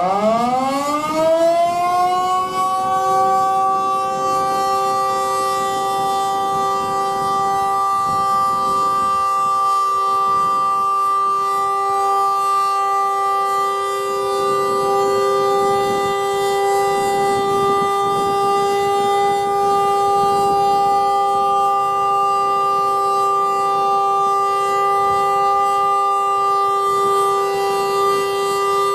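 Darley Model 2 electromechanical outdoor warning siren on its alert (steady) test cycle: it finishes winding up about two seconds in, then holds one steady, loud tone. The uploader suspects it is underpowered or has bad motor brushes.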